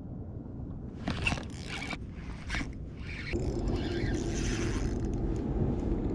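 Spinning reel being cranked to bring in a hooked fish on a bent rod. A few short scraping rustles come first, then a steady mechanical whir from about three seconds in.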